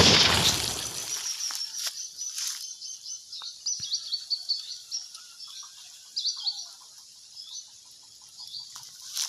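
The fading tail of a firecracker blast during the first second, then birds chirping with quick, high repeated calls, with a few faint pops. Another bang comes right at the end.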